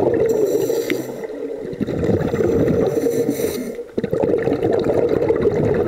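Scuba divers' regulators and rising exhaust bubbles, heard underwater through a camera's waterproof housing as a dense bubbling and gurgling, with two short hisses, one near the start and one about halfway.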